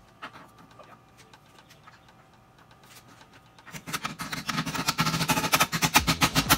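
An impact wrench hammering rapidly against the centre of a car's rear wheel hub. It starts about four seconds in, after a few quiet seconds with only faint ticks.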